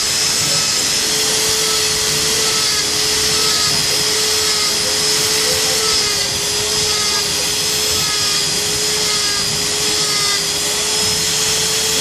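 Pinion gear teeth grinding: a steady, unbroken mechanical whine and grind, with a faint tick repeating about every two-thirds of a second.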